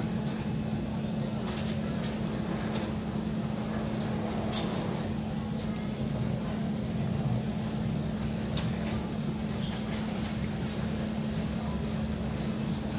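Steady low mechanical hum with one constant pitch, with a few faint crisp clicks over it from a cat crunching dry kibble.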